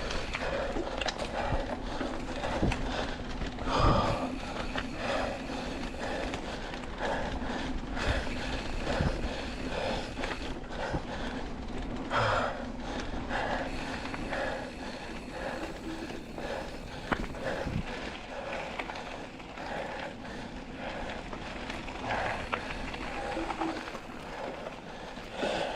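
Kona mountain bike riding over a dirt trail: a steady rumble of tyres and frame with occasional sharp knocks from bumps. Over it the rider breathes hard in a steady rhythm, about once a second.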